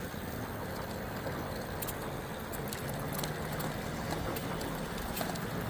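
Steady rushing noise of riding a bicycle along a trail: wind on the microphone and tyres rolling, with a few faint ticks.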